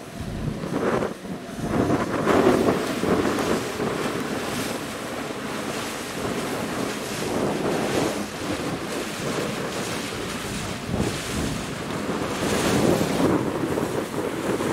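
Wind buffeting the microphone in uneven gusts on the open deck of a moving sightseeing boat, over the rush of water.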